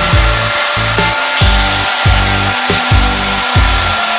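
Homemade drill-driven 6x48" belt sander running at speed: the 750 W electric drill gives a steady whine over the hiss of the belt, while a small steel part is ground against the belt, throwing sparks. Background electronic music with a heavy beat plays over it.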